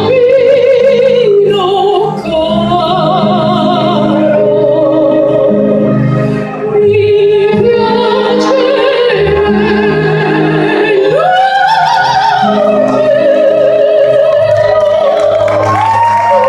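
A male soprano singing opera with vibrato over a low instrumental accompaniment, the voice climbing to higher held notes about eleven seconds in and again near the end.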